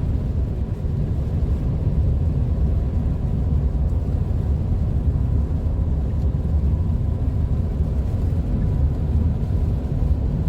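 Steady low rumble of road and tyre noise inside a moving car's cabin, driving on a wet, slushy road.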